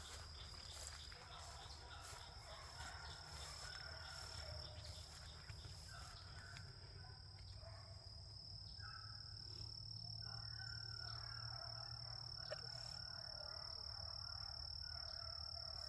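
A pack of beagles baying in the distance as they run a rabbit's track, in short broken calls over a steady, high-pitched drone of insects.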